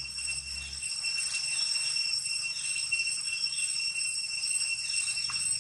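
Cicadas droning steadily on one high pitch, with fainter higher overtones. A low rumble stops under a second in.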